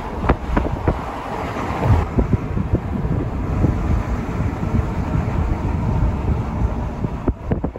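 Steady low rumble and hiss with scattered knocks, beginning to fade near the end.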